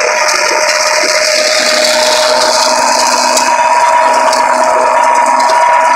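Agricolmeccanica TP/160 tractor-driven flail shredder running while cutting tall weeds: a loud, steady mechanical whine with two held tones, the higher one growing stronger about two seconds in, and scattered sharp ticks.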